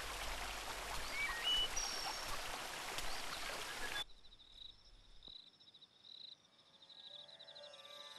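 River water rushing over rocks, with a few short bird chirps. About halfway through it cuts off abruptly, leaving only a faint, high, steady ringing tone.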